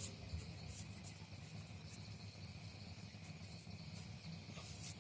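Soft, intermittent rustling of cloth as elastic on a safety pin is worked through a sewn fabric casing, over a steady low hum and a faint high tone.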